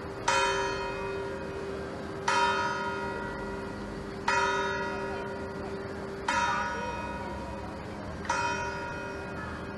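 A tower bell in an open iron frame atop the Palazzo del Governo, struck five times at the same pitch, evenly about two seconds apart. Each stroke rings on and fades before the next.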